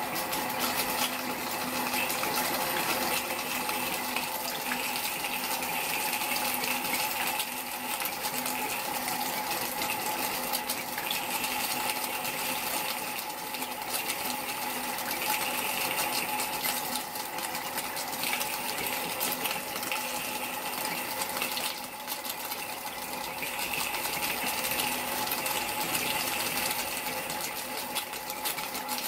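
Miniature steam locomotive's injector running: a steady steam-and-water hiss full of fine crackling and spitting, swelling and easing every few seconds. The injector is not picking up fully, so it is not feeding the boiler properly.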